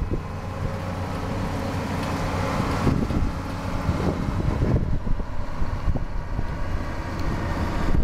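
Farm machinery running steadily: the tractor's diesel engine driving a John Deere 7721 pull-type combine. Wind gusts buffet the microphone throughout.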